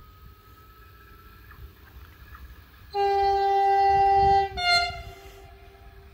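Approaching passenger train sounding its horn: one long blast about three seconds in, then a short second blast at a slightly lower pitch, over the low rumble of the train.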